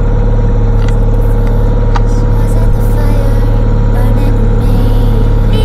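Outboard motor running steadily with an even low hum, driving a small sailing catamaran under way.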